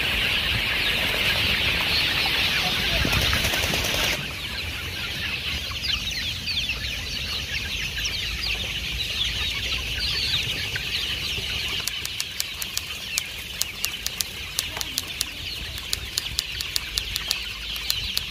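A large flock of young kampung chickens peeping and chirping, many high calls overlapping without a break. From about twelve seconds in, a run of sharp clicks sounds over the flock.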